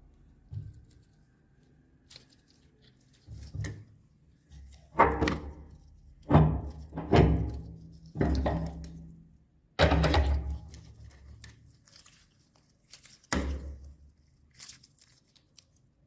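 Meat grinder crushing hard lollipop candy: a series of heavy crunching thunks, about six, each fading out over a second, with smaller clicks between.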